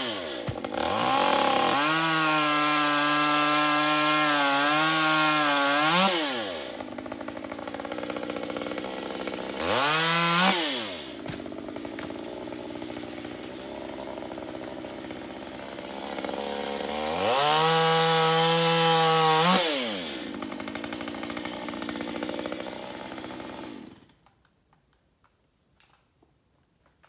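Two-stroke chainsaw revved to full throttle three times, the first for about four seconds and the others more briefly, dropping back to a lower idle in between. It is switched off about three seconds before the end.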